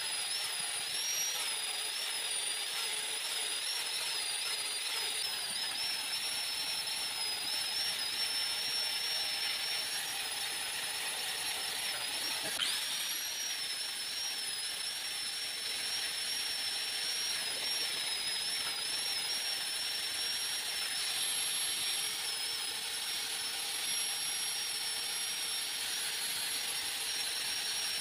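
Electric angle grinder fitted with a sanding pad running steadily as it sands and shapes a wooden handle; its high whine wavers slightly in pitch as the pad bears on the wood.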